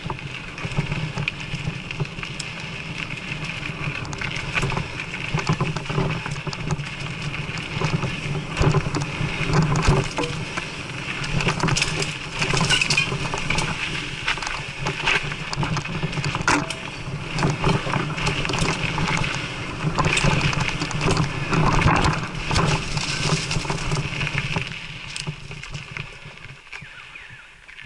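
Mountain bike ridden along a dirt single-track trail: continuous tyre noise on dirt and gravel with frequent rattles and knocks from the bike over bumps. It gets quieter near the end.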